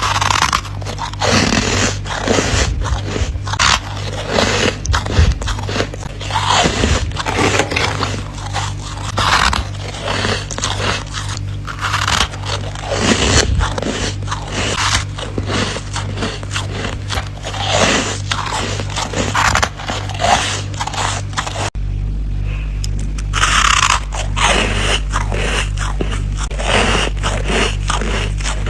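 Close-up biting and chewing of squeaky ice: soft frozen ice pieces crunch and squeak against the teeth in quick, irregular bites. A steady low hum sits underneath.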